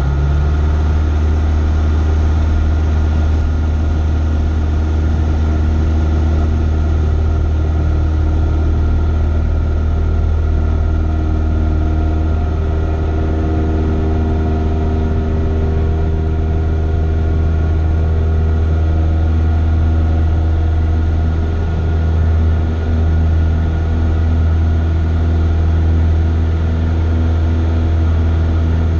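Cessna 172's piston engine and propeller heard from inside the cabin. The engine comes up sharply to takeoff power right at the start, then runs at a steady, loud drone through the takeoff roll and climb.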